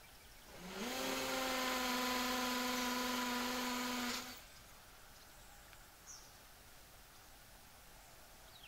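Power drill with a 4 mm masonry bit drilling into a brick. The motor spins up with a quick rising whine about half a second in, runs at a steady pitch for about three and a half seconds, then stops.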